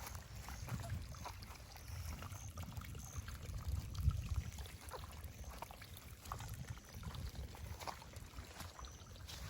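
Storm runoff trickling and running along a draw after a thunderstorm, under an uneven low rumble and scattered clicks from walking with a handheld camera.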